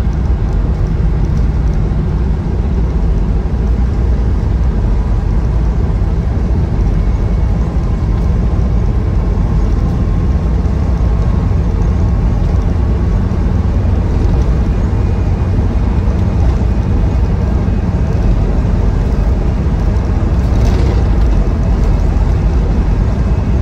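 Inside the cab of a moving 2003 Land Rover Defender 90 Td5: its 2.5-litre five-cylinder turbodiesel running with road noise, a steady drone strongest in the low end.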